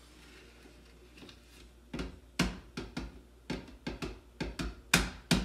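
Drink cartons and bottles being shifted and set down on a countertop: a run of irregular knocks and thuds starting about two seconds in, the loudest near the end.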